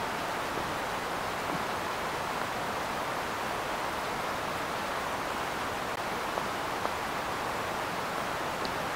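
Steady, even hiss with a few faint ticks and no change in level.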